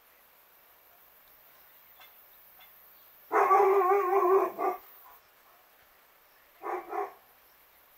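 A dog calling out: one loud, wavering call lasting about a second and a half, then two short calls close together near the end.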